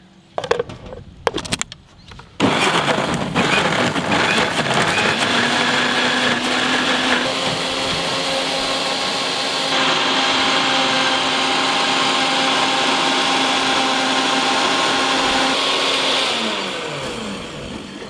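Electric mixer grinder blending rambutan flesh, sugar and milk into a milkshake. A few clicks, then the motor starts about two and a half seconds in and runs steadily with a whine that gets louder and higher about halfway through, then winds down with falling pitch near the end.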